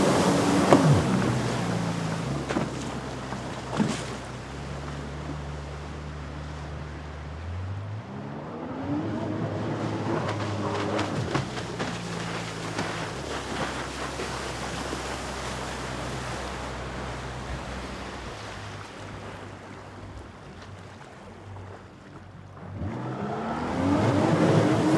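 Jet ski engine running on the water over a wash of water noise. It eases down to a low steady drone, then revs up in pitch about eight seconds in. Later it fades away and swells loud again near the end.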